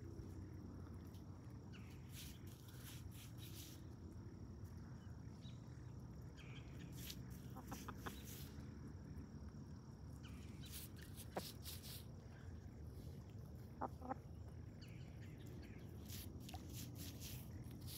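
Faint, scattered calls of domestic poultry foraging in the dirt, over a low steady outdoor rumble.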